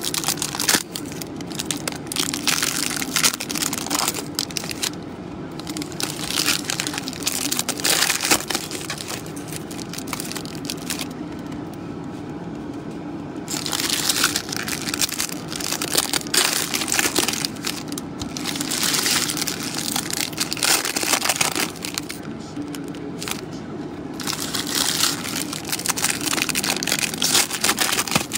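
Panini Mosaic NFL blaster boxes and card packs being torn open by hand, with crinkling and tearing of wrappers and cardboard in bursts separated by short pauses.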